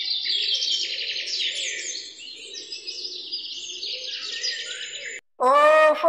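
A chorus of blue tit nestlings begging with fast, shrill chirps that pile over one another. The calling cuts off suddenly near the end.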